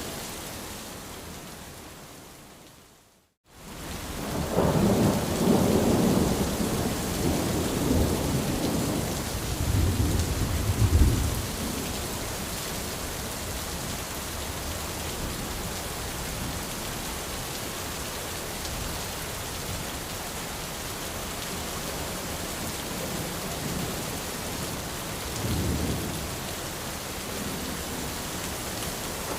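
Steady rain pattering on an umbrella, with thunder rumbling heavily from about four to twelve seconds in and once more, briefly, near the end. About three seconds in, the rain fades out to a moment of silence and then comes back.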